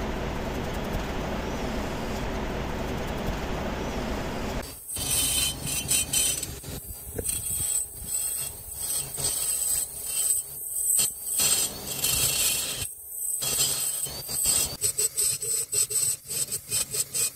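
Hand-held high-speed rotary tool with a carbide burr grinding out the ports of a Yamaha RX135 two-stroke cylinder. After a steady, even noise lasting about four and a half seconds, the sound changes abruptly to a high whine that comes and goes in many short bursts as the burr is worked in and out of the port.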